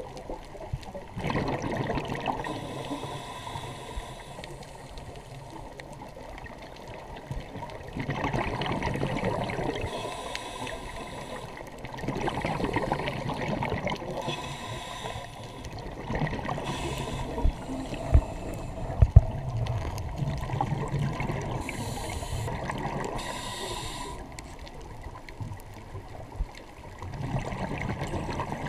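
Scuba diver's regulator breathing heard underwater: surges of exhaled bubbles gurgling every few seconds, with quieter spells between. There are a few sharp knocks a little past halfway.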